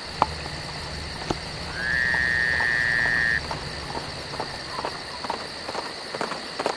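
Crickets chirping steadily in the evening. About two seconds in, a high whistle-like tone rises slightly and is held for about a second and a half, and faint knocks begin near the end.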